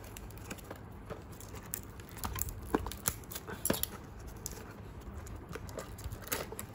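Mouse retail packaging being handled and pried open with difficulty: irregular small clicks, taps and scraping rustles of the box and its inner packing.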